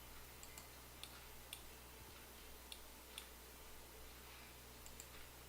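Faint computer mouse clicks, about eight, spaced irregularly, over a low steady hum.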